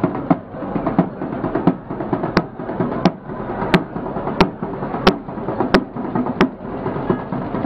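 Procession drums, a large barrel drum among them, beaten in a steady beat of about one and a half strokes a second. A run of sharper, cracking strokes stands out through the middle. A dense, busy din lies underneath.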